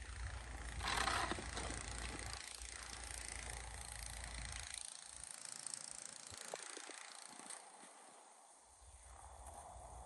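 Snow shovel pushing and scraping snow along a driveway, loudest about a second in. Wind rumbles on the microphone through the first half and again near the end.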